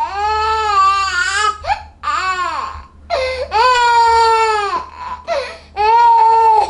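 Seven-month-old baby crying in loud, high-pitched wails: four long cries with short sobs between them.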